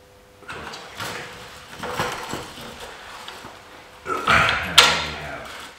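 Metal parts being handled, with scrapes and a few knocks. Near the end comes a drawn-out wordless vocal sound from a man, about a second and a half long, with a sharp metallic click in the middle of it.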